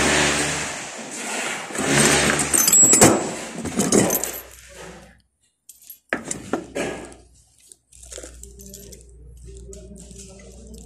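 Metal hand tools clinking and jangling as they are handled and taken from a worker's tool pouch, with rustling and a few sharp clicks.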